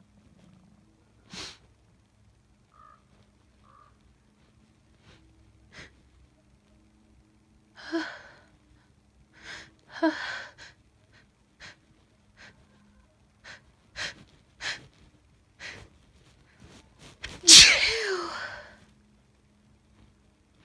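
A woman working up to a sneeze: short sniffs and two gasping in-breaths, then quick catching breaths. Near the end comes one loud sneeze with a falling voiced tail.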